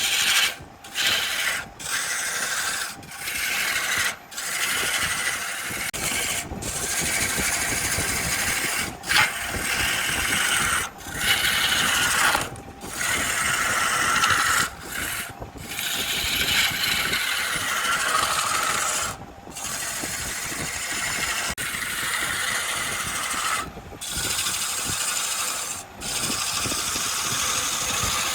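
A turning tool cutting into wood spinning on a wood lathe: a steady scraping hiss of shavings coming off, broken by brief gaps every one to three seconds as the tool lifts off the work.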